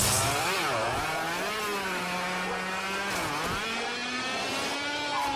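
A lawnmower's motor starting abruptly and revving like a motorcycle engine, its pitch dipping and rising several times, then holding a little higher near the end.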